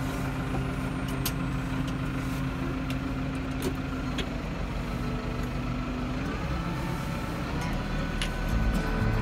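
New Holland TS-series tractor's diesel engine idling at about 730 rpm, heard from inside the cab. A little past six seconds in, it speeds up smoothly toward about 1100 rpm.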